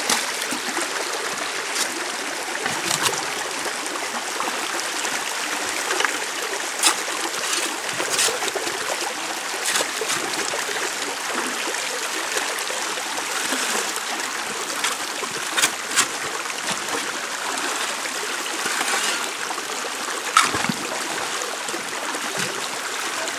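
Creek water running steadily through a sluice box, with scattered sharp clicks and knocks as a shovel digs gravel and rocks into it.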